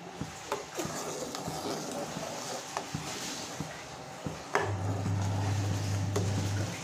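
Steel ladle stirring kadhi in a metal cooking pot, with scattered clinks and scrapes of the ladle against the pot. A low steady hum comes in about four and a half seconds in and stops just before the end.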